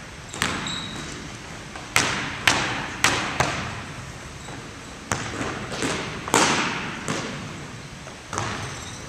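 Basketball bouncing on a hardwood gym floor: about ten sharp, irregularly spaced bounces, each echoing in the large hall.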